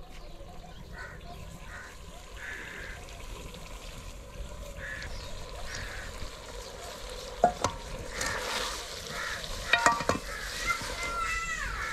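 A metal spatula stirs and scrapes food frying in an aluminium pot over a wood fire, with a steady sizzle underneath. There are sharp clinks against the pot about seven and a half and ten seconds in.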